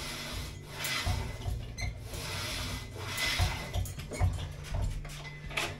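Homemade cable pulley machine worked through biceps curls: the cable runs over the pulleys with a rubbing hiss on each rep, about every two seconds, with dull knocks from the weight carriage.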